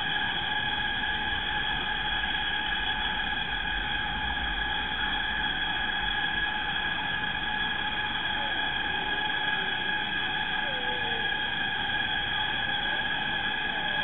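Steady ambience in tropical foliage: several constant high droning tones, typical of a chorus of cicadas or other insects, with a few faint short gliding calls about two-thirds of the way through.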